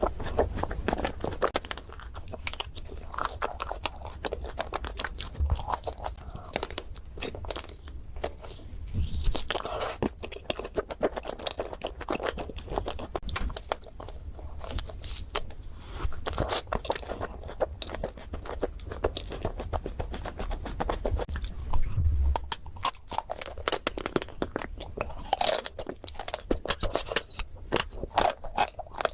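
Close-miked eating of chocolate desserts: crunchy bites and chewing, with a dense, irregular run of crackles and clicks.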